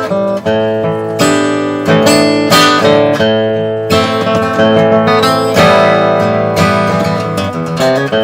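Gibson Hummingbird acoustic guitar strummed in a steady rhythm, each chord ringing on into the next.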